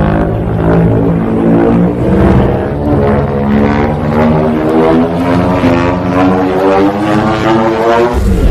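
Kaiju atomic-breath charging sound effect: a loud, continuous droning hum made of many stacked tones, slowly rising in pitch. It breaks into a sudden noisy blast just before the end.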